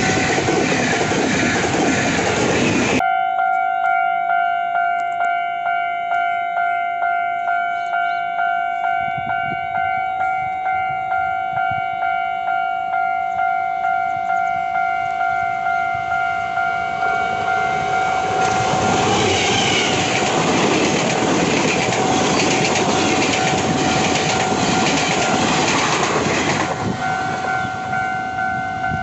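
Taiwan Railway express train running past on the rails for the first few seconds. Then a level-crossing warning bell rings in a steady beat of about one and a half strokes a second. About two-thirds of the way in, the rush of a passing train's wheels on the rails drowns the bell, and the bell is heard again near the end.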